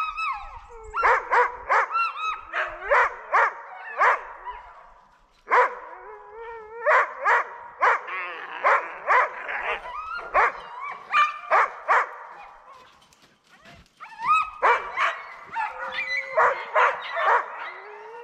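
Several Alaskan husky sled dogs barking, yipping and whining over one another in a steady clamour, dropping off briefly twice. This is the eager noise of sled dogs waiting to be hitched up for a run.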